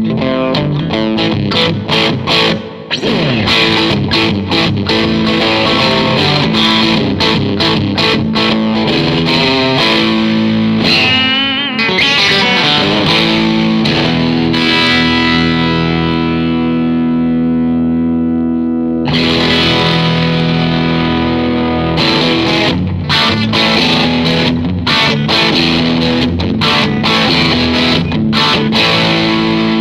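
Electric guitar, a Fender Stratocaster, played through a 1959 Fender 5F6-A Bassman tube amp with four 10-inch speakers: a run of picked notes and chords, then a chord left to ring out and fade for about five seconds before the playing picks up again.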